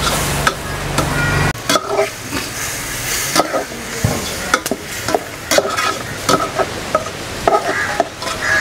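Marinated beef frying in coconut oil in a metal pot, with a steady sizzle. A slotted metal spatula scrapes and clacks irregularly against the pot as the meat is stirred. A low rumble underneath cuts off about a second and a half in.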